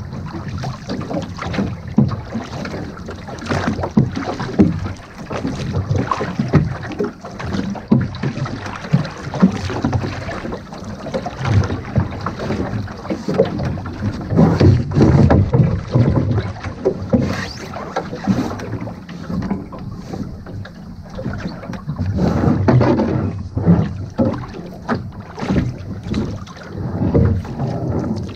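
Woods Bee rowing boat being rowed on the open sea: wooden oars splashing and knocking irregularly in the water and rowlocks, with the sea washing past the hull. Wind rumbles on the microphone throughout.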